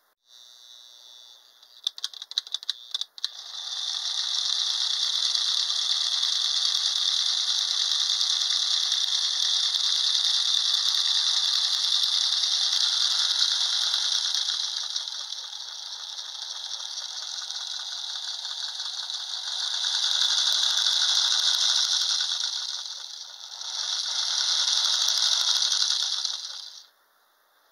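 Lionel O-gauge locomotive motor and gears running with the wheels spinning free, a loud high whirring rattle. It starts after a few sharp clicks about three seconds in, eases off in the middle, speeds up again twice and cuts off near the end. The motor runs with its E-unit freshly treated with WD-40.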